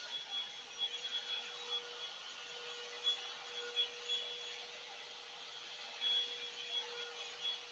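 Revlon One Step Hair Volumizer hot-air brush running: a steady fan rush of air with a steady motor whine over it.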